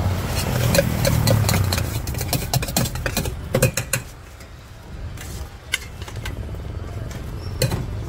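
Steel spoon clinking and scraping against a stainless-steel tumbler as the sweet corn mix is stirred: a quick run of sharp clinks over the first few seconds, then a few more near the end. A low motor-vehicle engine rumble sits under the first couple of seconds.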